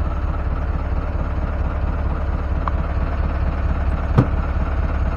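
A small fishing boat's engine running steadily, a low even drone with a fine rapid pulse. There is a single sharp knock about four seconds in.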